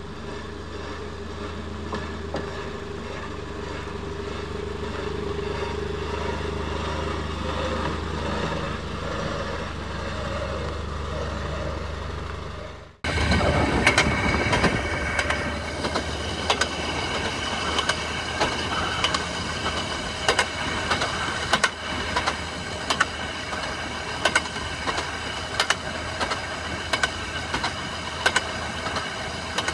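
Railroad motorcar (speeder) running along the track with a steady engine drone. After a sudden cut about halfway through, the running is louder and noisier, with sharp clicks every second or so.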